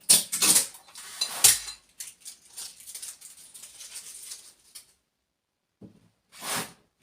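Packaging of a new small refrigerator being handled: loud rustling and scraping with a couple of sharp knocks in the first two seconds, softer rustling after, and another short rustle near the end.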